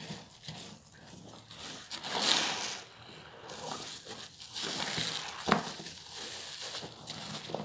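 A new sponge squeezed and kneaded by hand in thick soap suds: wet squishing and crackling of foam, with a louder squish about two seconds in and a sharp squelch about halfway through.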